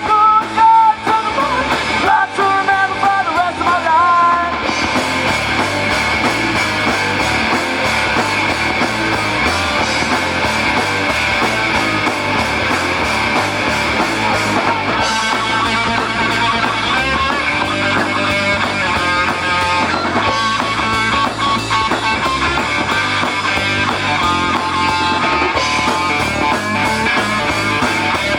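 A live rock band playing a song with electric guitar, bass and drums, a melodic lead line wavering over it in the first few seconds.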